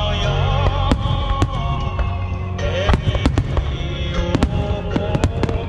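Aerial fireworks shells bursting, the sharp bangs coming thick and fast from about three seconds in, over music playing along with the show.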